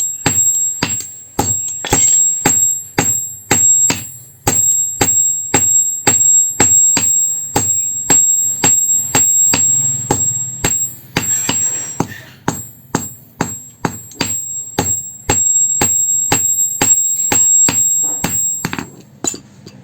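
Hand hammer blows on steel against an anvil, about two strikes a second, each with a high metallic ring, as the old vehicle spring steel is forged. The blows stop shortly before the end.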